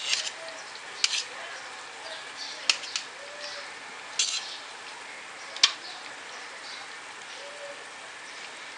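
A few sharp clicks of a knife against the cutting surface as soft boiled goat brain is cut into pieces, the loudest about five and a half seconds in, over the faint steady sizzle of masala paste cooking in oil.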